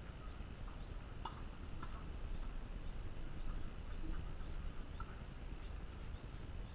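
Wind rumbling on the microphone, with faint short rising bird chirps repeating about twice a second and a few light clicks.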